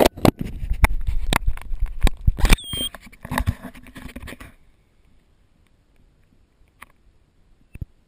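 Water splashing and pattering with a rapid clatter of knocks, typical of paddling and handling aboard a sea kayak, plus one short high squeak about two and a half seconds in. It cuts to near quiet at about four and a half seconds, leaving only a few faint clicks.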